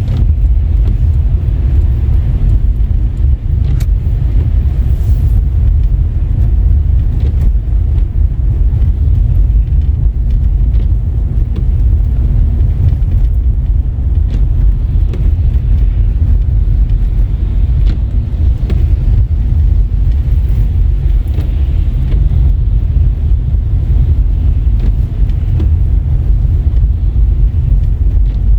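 A car driving, heard from inside: a steady low rumble of tyre, road and engine noise, with a few faint ticks scattered through. The road is wet with mixed rain and snow.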